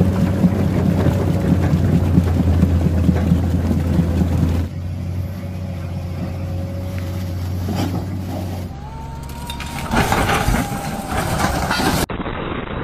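Excavator diesel engine running steadily as the machine drives through a deep, muddy, flooded track. About nine seconds in the sound cuts to loud, noisy blasts of an explosion.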